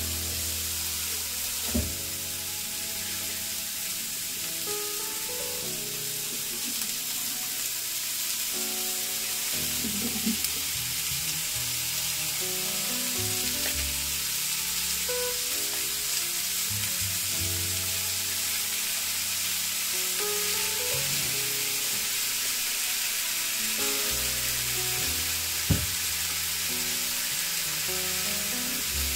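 Sliced onion and garlic sizzling steadily in a hot frying pan, with a couple of short knocks as scallops are set in the pan. Quiet background music underneath.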